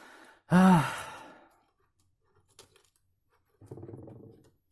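A man's exasperated sigh after a part won't fit: a breath in, then a loud voiced sigh that rises and falls in pitch and trails off in breath. A few faint clicks follow, and a short low hum or mumble comes near the end.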